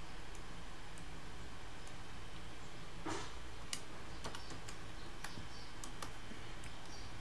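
Computer mouse and keyboard clicks, scattered sharp clicks starting about three seconds in, over a steady low hum.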